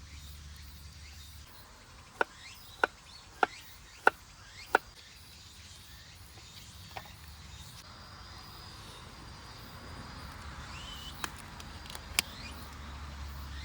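Five sharp knocks in quick, even succession starting about two seconds in, followed by a few scattered fainter clicks.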